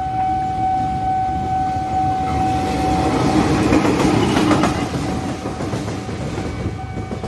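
A steady, high warning tone from the level-crossing alarm over the low rumble of an approaching CC206 diesel-electric locomotive. About three seconds in, the locomotive passes close by: engine and wheel noise swell to a loud rush that drowns the alarm, with wheels clicking over the rail joints around four seconds in, then ease off.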